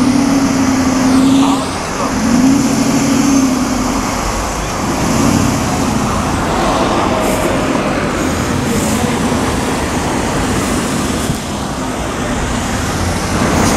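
Aston Martin Vantage engine and exhaust pulling away along the street, the note rising and dropping in pitch over the first four seconds, then giving way to steady street traffic.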